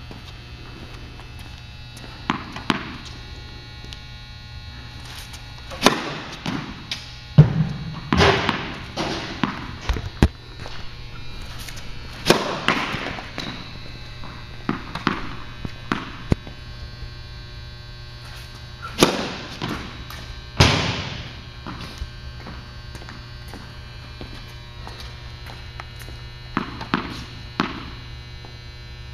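Tennis balls bouncing on a hard court and struck by a racket on serves, a scatter of sharp echoing impacts, some in quick clusters. A steady low building hum runs underneath.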